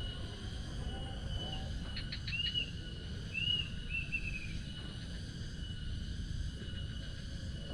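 Outdoor nature ambience: a steady high-pitched insect drone with a bird giving a few short, arched chirps about two seconds in and again in the middle, over a constant low rumble.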